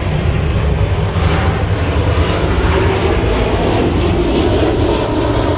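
An engine running steadily, a loud, even drone.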